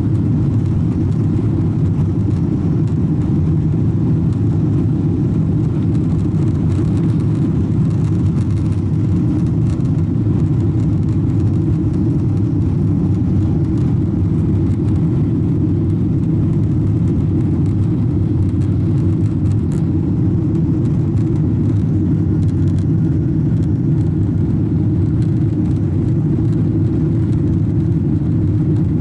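Boeing 777-300ER's GE90-115B engines at takeoff power, heard from inside the cabin as a loud, steady low rumble mixed with rushing air through the end of the takeoff roll, liftoff and initial climb.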